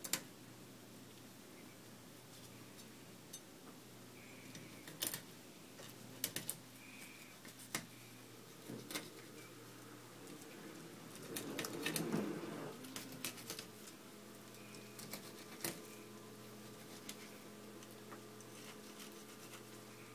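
Kitchen knife filleting a small bluegill on a plastic cutting board: scattered clicks and taps of the blade against the board and fish, with a longer stretch of scraping as it cuts along the backbone a little past the middle. A low steady hum runs underneath.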